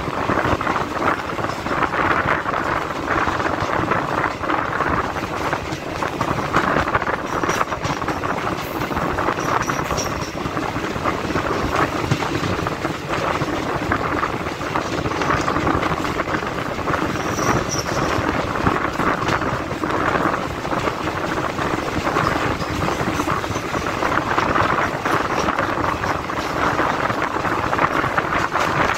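Indian Railways DEMU (diesel-electric multiple unit) passenger train running along the line, heard from an open coach window: a steady rumble with continual clicking clatter of the wheels on the rails.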